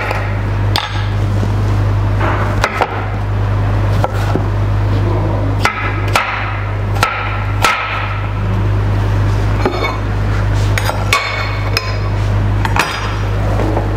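Chef's knife chopping a cucumber on a wooden cutting board: irregular sharp knocks of the blade striking the board, over a steady low hum.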